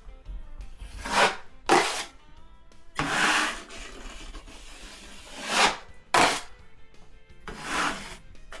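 Steel drywall taping knife scraping and spreading joint compound across a patched wall, six separate strokes of varying length, one long stroke about three seconds in. Faint background music underneath.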